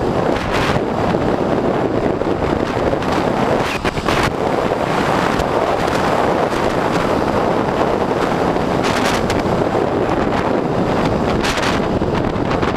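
Loud, steady wind rushing over the microphone of a camera on an electric bike riding fast along a road, with a few short gusts.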